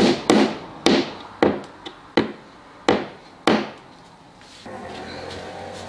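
Hammer tapping wooden dowels into their holes in the edge of a veneered MDF panel: six sharp taps about every half second, stopping after three and a half seconds. A steady low hum follows near the end.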